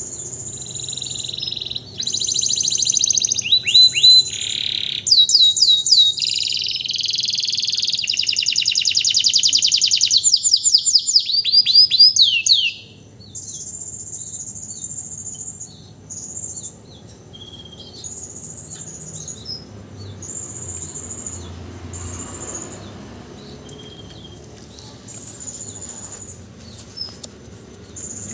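Domestic canary singing in full song just after its moult: loud rapid trills and quick sweeping notes, with one long fast trill near the middle. After about thirteen seconds it drops to softer, shorter high phrases.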